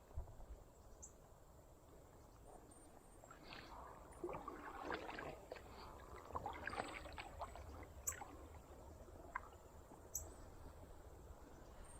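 Faint water splashing around a kayak, with two sharp clicks late on.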